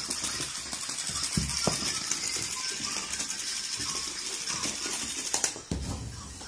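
A battery-powered bumble ball toy buzzing and rattling as it jiggles across the floor, with a few dull thumps.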